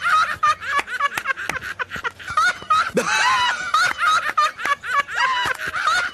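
High-pitched laughing: a long, unbroken run of giggles.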